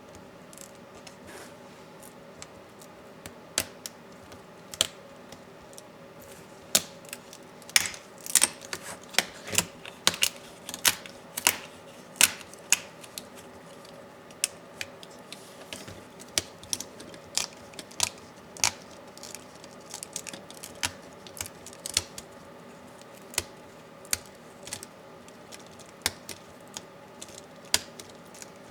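Irregular small clicks and taps of hand tools and loose laptop parts being handled during disassembly, plastic and metal knocking on a work surface, busiest in the first half.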